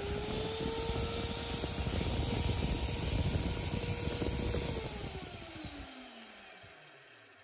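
Magnetic drill press with an annular cutter running in a steel truck frame rail: its motor whine rises slightly in pitch as the cutter comes free of the hole. The motor is then switched off and winds down, the whine falling in pitch and fading over about three seconds.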